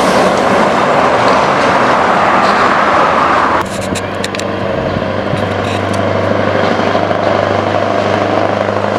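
Straight-piped heavy diesel truck passing close with a loud, rough exhaust. About three and a half seconds in, the sound cuts abruptly to another straight-piped truck approaching from a distance: a steadier, lower exhaust drone that grows louder as it nears.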